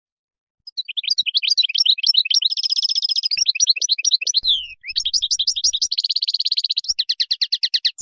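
European goldfinch singing its wild-type song. It is a fast, twittering run of high chirps and trills with buzzy held stretches, starting under a second in and broken by a brief pause about halfway through.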